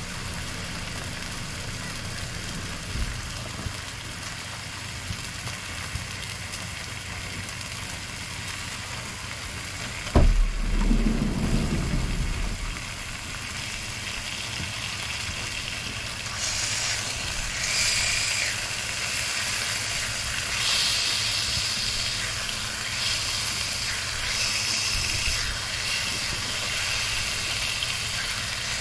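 Bacon strips sizzling on a gas-fired flat-top griddle, a steady hiss that grows louder and more crackly in the second half as the strips are turned with a metal spatula. A single loud thump about ten seconds in.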